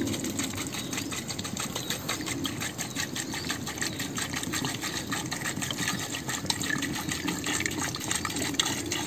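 Water pouring steadily from a plastic bottle into a soot-blackened metal pot of Bambara groundnuts in their shells, the stream splashing onto the nuts with fast, even gurgling pulses.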